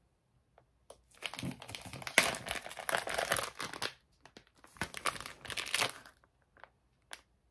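Crinkling of a clear plastic bag of wax melts being handled, in two spells of a few seconds with a short pause between.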